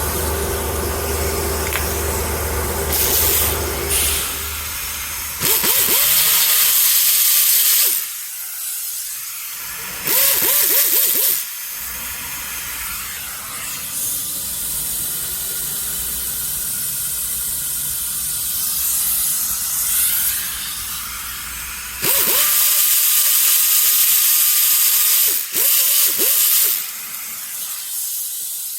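Several loud bursts of hissing, each one to three seconds long and opening with a short rising tone, following a steady low hum in the first few seconds.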